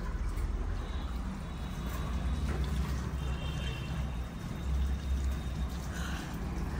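Tap water running and splashing into a washbasin as hands are washed under it.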